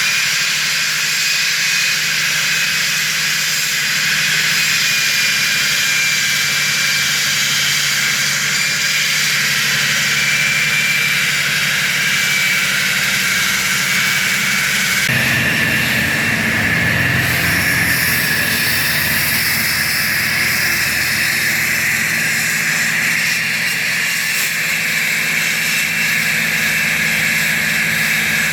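Concrete saw cutting a concrete floor: a loud, steady machine whine. Its pitch and character change abruptly about halfway through.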